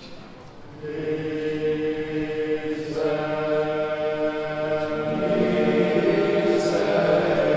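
Choir chanting slow sacred music in long held notes. Voices come in about a second in, the sound grows fuller from about three seconds, and it gets louder toward the end.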